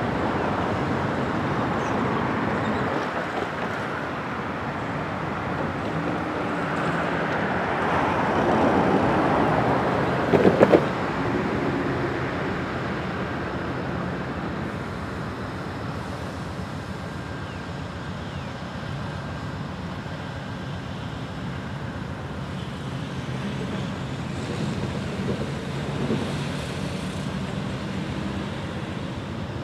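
Road traffic passing, one vehicle swelling louder and fading about eight to ten seconds in, followed by a quick cluster of sharp clicks. A steady low hum runs underneath.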